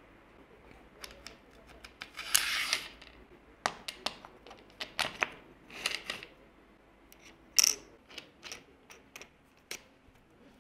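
Scattered sharp clicks and taps of small metal hardware as a hex bolt is set into an aluminium T-track and a wooden block, washer and wing nut are fitted onto it. There is a brief scrape about two seconds in and a bright metallic clink near eight seconds.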